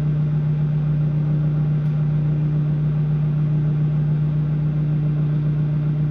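Microwave oven running, a steady unbroken low hum.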